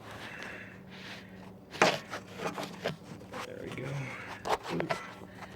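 Handling noise as a camera is repositioned: scattered knocks and clicks, with one sharp click about two seconds in. Short low voice sounds from the man are heard near the end.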